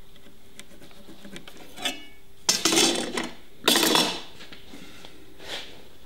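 A steel rule being handled on a painted wooden beehive box: a few light ticks and a small metallic clink, then two short scraping clatters about a second apart.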